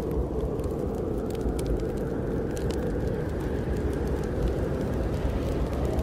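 Snowstorm wind blowing steadily with a deep rumble, overlaid with frequent small crackles from a wood fire burning in a fireplace.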